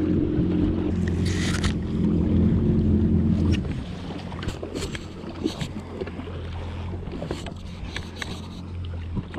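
Yamaha FX HO WaveRunner engine running with a steady low hum, then cutting out about three and a half seconds in. After that there is only water noise and scattered light clicks. A brief hiss comes about a second in.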